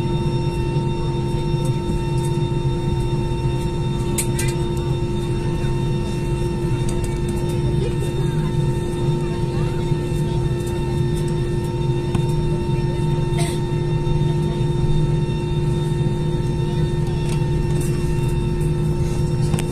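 Jet airliner's turbofan engines running steadily as heard inside the cabin while the plane rolls on the ground: an even, loud drone with a constant low hum and steady higher tones, with a couple of brief clicks.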